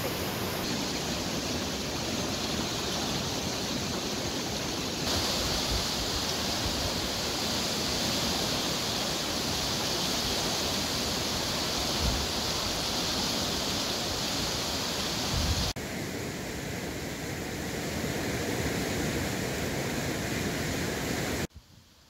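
The River Ribble in spate, rushing over rocky rapids as a steady, dense roar of water. A few brief low thumps sound over it, and the water sound drops away sharply just before the end.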